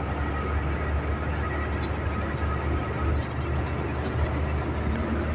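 Truck engine running and tyre noise heard from inside the cab as the truck drives along, a steady low rumble with a faint steady whine above it.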